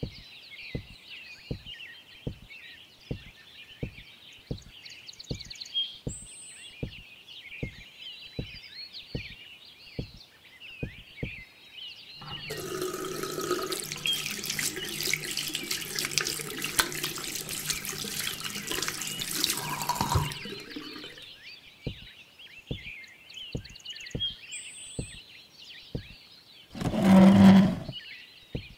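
Kitchen tap running into a sink for about eight seconds, from about twelve seconds in, as hands are washed. Under it and around it there is a steady run of soft, evenly spaced clicks, about two a second. A brief loud sound comes about a second before the end.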